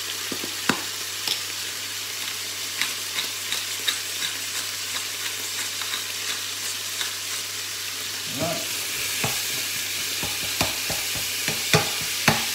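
Pork mince sizzling steadily in a frying pan, with scattered small ticks. In the second half the sizzle grows louder as the mince is stirred, and a metal spoon scrapes and knocks sharply against the pan.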